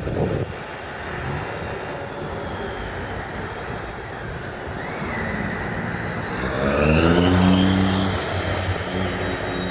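Class 071 diesel locomotive's EMD 645 V12 two-stroke engine running as it moves slowly; about two-thirds through its pitch rises and it grows louder as it powers up, then settles. High squeals from the wheels on the curved track come and go, and wind buffets the microphone at the start.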